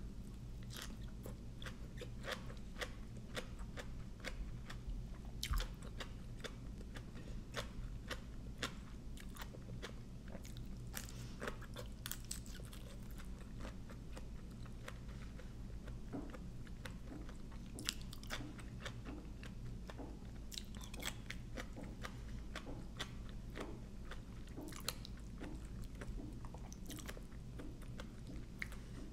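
Close-up chewing and crunching of mouthfuls of som tam (spicy green papaya salad) with raw shrimp, lettuce and fresh vegetables. Many small crisp crunches run throughout, over a steady low hum.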